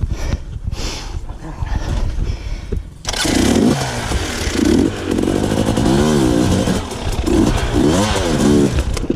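Off-road motorcycle engine revving hard under load as it climbs a rocky waterfall. It runs at a lower rumble at first, jumps louder about three seconds in, and its pitch rises and falls repeatedly as the throttle is worked.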